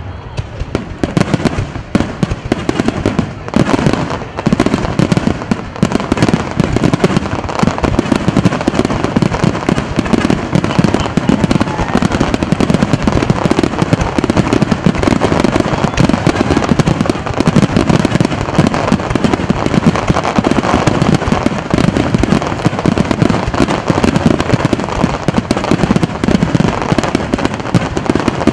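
Fireworks barrage: aerial shells bursting in rapid, overlapping succession, one bang on top of the next with hardly a gap, a little sparser in the first second before the run thickens.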